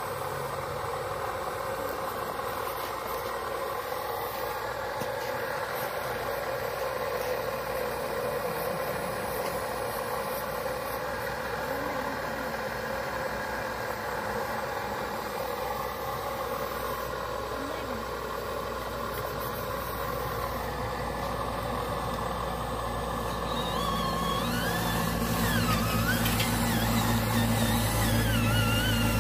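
Steady whirring of a radio-controlled scale excavator and dump truck at work as soil is loaded into the truck's bed. About 24 seconds in, a lower, louder motor sound joins as the dump truck pulls away.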